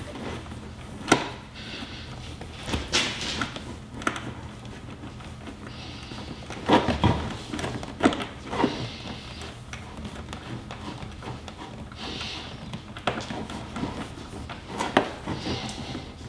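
Scattered clicks and knocks of a wrench and fingers working on 8mm bolts inside the cramped cavity behind a Corvette C7's rear fender trim, as the bolts are loosened. A few short soft hisses between them.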